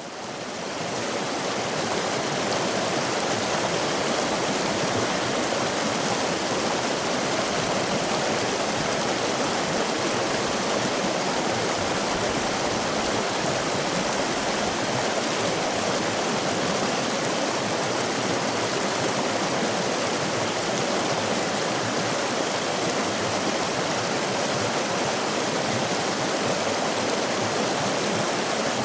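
Running water of a stream, a steady dense rush that fades in over the first second or so and then holds even.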